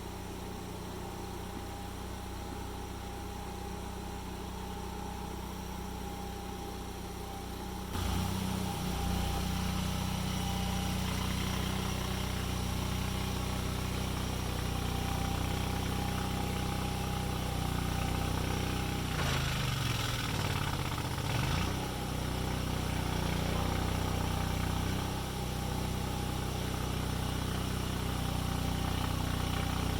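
Small engine running steadily, stepping up louder about eight seconds in, with its pitch dipping and climbing back up around twenty seconds in.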